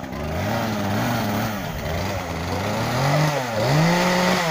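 Chainsaw running as it cuts wood, its engine pitch rising and falling under load.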